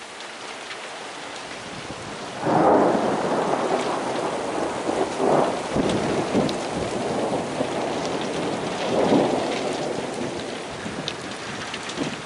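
Graupel (soft hail) falling with a steady fine patter of pellets. A roll of thunder starts suddenly about two and a half seconds in and rumbles on, swelling twice more before easing off.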